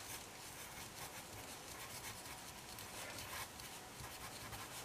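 Pencil writing on paper: faint scratching strokes of the graphite as letters are written by hand, with a light tap right at the start.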